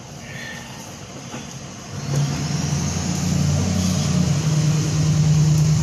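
An engine starts up about two seconds in and then runs steadily with a low drone.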